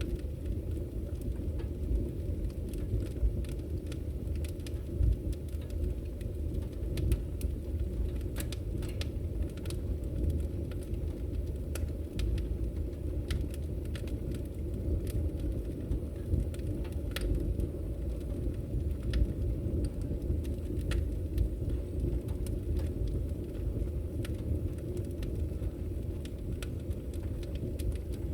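Firewood burning in a fireplace: a steady low rumble with frequent, irregular sharp crackles and pops.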